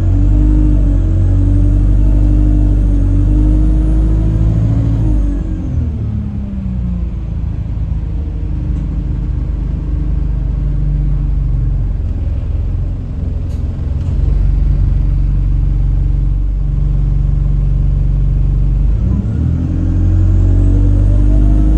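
Alexander Dennis Enviro 200 bus under way, with a loud horn-like drone over the rumble of the drivetrain and a faint high whistle above it. Both fall in pitch about five seconds in, stay low, and rise again near the end. The uploader suspects the gearbox.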